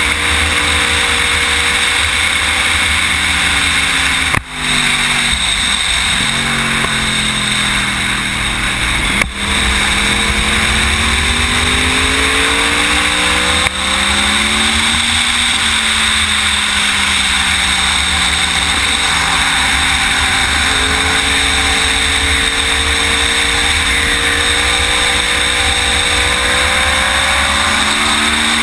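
Sportbike engine at speed, heard under a heavy rush of wind. Its pitch falls and rises several times, with short breaks in the sound about 4.5 and 9 seconds in and near 14 seconds.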